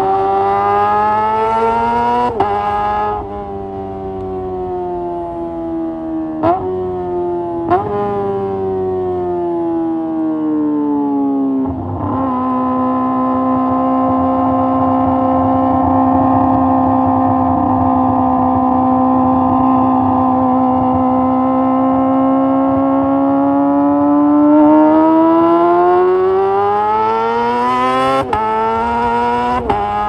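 Kawasaki ZX-25R's 249 cc inline-four running through a Leo Vince GP Corsa Evo short full-system exhaust, heard from the rider's seat. It jumps and drops in pitch through gear changes, with a few sharp cracks, in the first eight seconds, then falls as the bike slows. It holds one steady high note for about twelve seconds, then rises again as it accelerates near the end.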